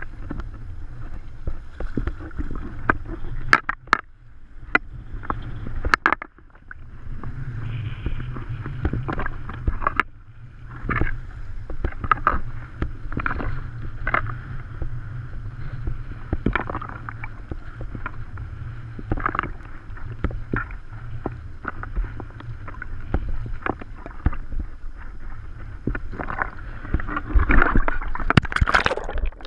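Choppy sea water sloshing and slapping against a pole-mounted camera held just above the surface, in irregular splashes over a steady low rumble. The splashing grows busier and louder near the end as the camera dips to the waterline.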